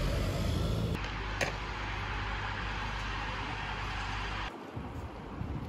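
City street traffic: a taxi passing close over a steady hum of road noise. The background shifts abruptly about a second in and again near the end, with one sharp click in between.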